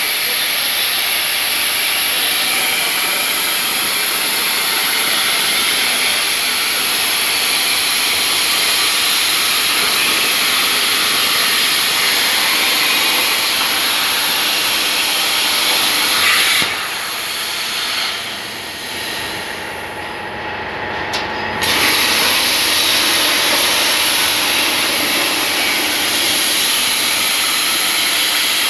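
CNC plasma cutter cutting 2 mm sheet metal: a loud, steady hiss of the arc and air jet. About seventeen seconds in it drops to a quieter, duller hiss for about five seconds, then snaps back to full strength.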